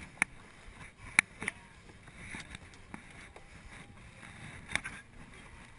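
Sharp knocks and scraping from a worn GoPro camera rubbing and bumping against an obstacle as the wearer climbs, with four distinct knocks over a low rustle.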